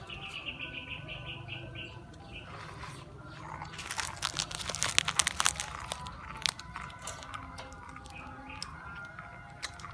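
Cat eating, with a run of quick wet clicking and chewing sounds from about three and a half to six and a half seconds in.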